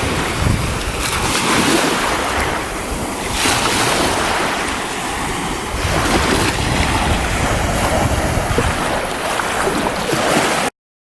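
Baltic Sea surf washing onto the shore in slow swells, with wind buffeting the microphone. The sound cuts off suddenly near the end.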